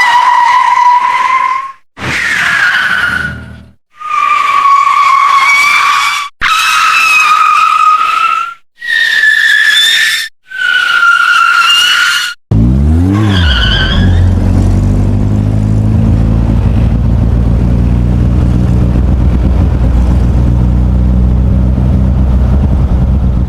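Six separate car tyre-squeal sound effects, each a high skid of one to two seconds with short gaps between. About halfway in there is one brief squeal, then a long, low, steady rumble lasting about ten seconds.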